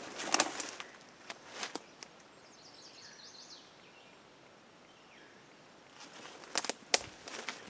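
Footsteps on the forest floor, a few steps near the start and again near the end. In the quiet between, a faint bird call of short high notes.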